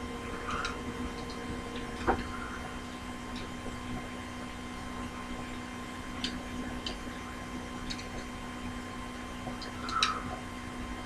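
Scattered light clicks and taps of small parts being handled while working on a helicopter, with a sharper knock about two seconds in and another near the end, over a steady hum.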